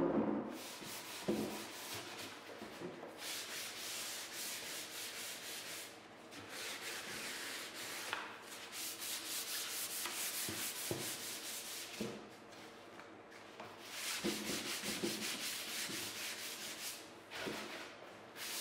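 Hand sanding a wooden desk top with a sheet of sandpaper: a rasping hiss of quick back-and-forth strokes, in several runs broken by short pauses.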